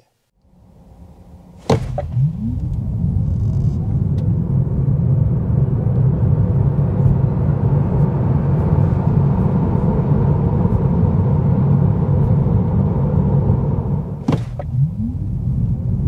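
Tesla Model 3 RWD Highland at full acceleration: a low road and tyre rumble builds with speed and holds, with a faint rising electric-motor whine as each run gets going. A sharp click comes just under two seconds in and another near the end.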